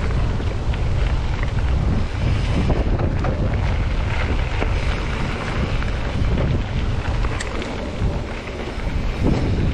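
Wind buffeting the action-camera microphone of a mountain bike riding a dirt forest trail, a steady low rumble with tyre noise and scattered small clicks and rattles from the bike over the ground.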